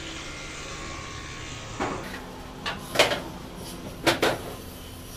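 Steady background hum, then from about two seconds in a handful of sharp knocks and clatters, the loudest about three seconds in.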